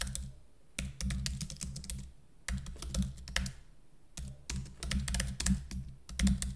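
Typing on a computer keyboard: quick runs of keystrokes in several bursts, with brief pauses between them.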